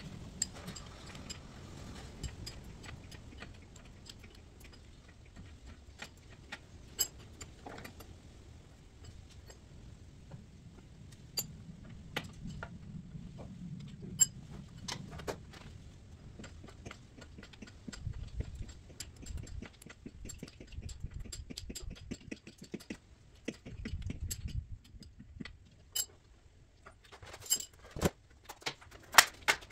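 Metal hand tools clinking and ticking against metal in irregular sharp clicks, as someone works under the engine of a VW Beetle. There are a few louder knocks and clicks near the end.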